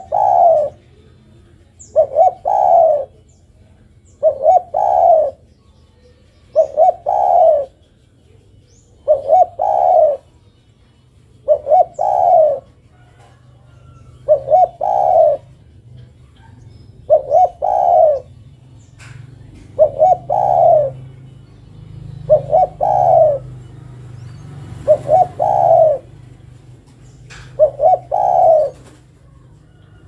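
Spotted dove cooing: a short phrase of two or three quick notes, repeated about every two and a half seconds, about a dozen times. It is given as a female's call to a male.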